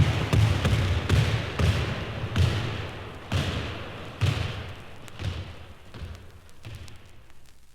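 Recorded sound effect: irregular dull thumps, roughly one a second, each with a rush of noise, over a steady hiss, fading out toward the end.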